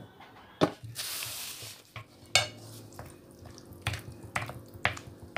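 Spoon clinking against a glass mixing bowl a few times, with a short hiss about a second in, then the wet scrape and squish of a thick flour-and-sardine batter being stirred.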